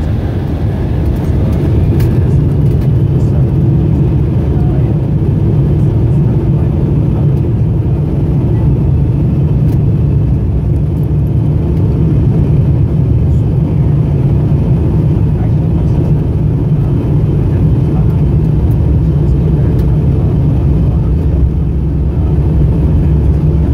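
Cabin noise of an Embraer E175 on its takeoff roll: its GE CF34-8E turbofans running at takeoff thrust, heard as a loud steady roar mixed with the deep rumble of the wheels on the runway. A faint whine climbs about two seconds in as the engines spool up.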